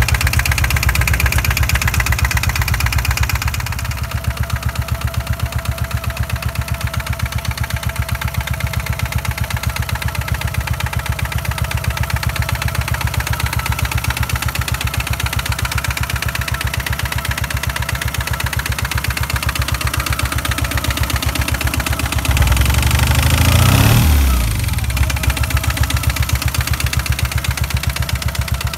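Turbocharged 500 cc Lombardini diesel engine in a converted Honda CB500 motorcycle idling with a steady, even beat. It is a little louder for the first few seconds and settles about four seconds in, and is revved briefly about 23 s in, rising then dropping back to idle.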